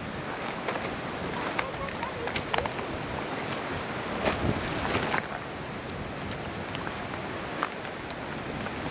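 Steady rushing noise of a flowing river with wind on the microphone, broken by scattered sharp clicks.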